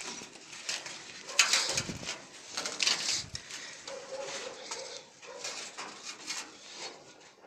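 Climbing on a snow-covered metal stair: scraping and crunching of snow under hands and feet, with a couple of dull thuds.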